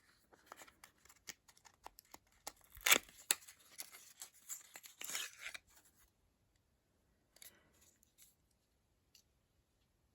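Hands handling the packaging of a small tube of skincare cream: crisp rustling and a run of small clicks and taps, with one sharp click about three seconds in, dying down to a few faint taps after about six seconds.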